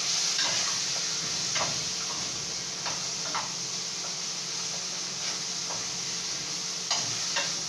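Curry-seasoned chicken frying in hot oil and burnt curry in a pot: a steady high sizzle with scattered sharp crackles and pops.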